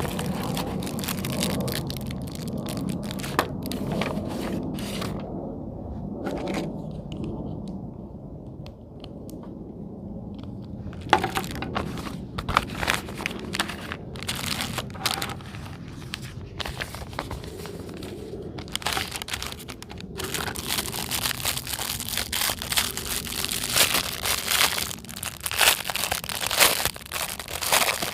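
Plastic packaging being handled, crinkled and torn open while unboxing fidget toys. Soft, muffled handling sounds come first; sharp crinkles and clicks start about eleven seconds in and turn into dense, continuous crinkling for the last third.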